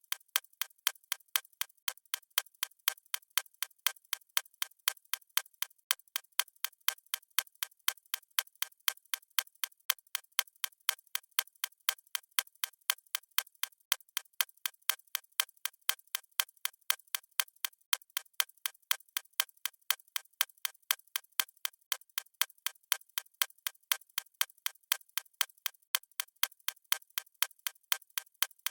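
Clock ticking sound effect: sharp, even ticks about twice a second, crisp and thin with no low end.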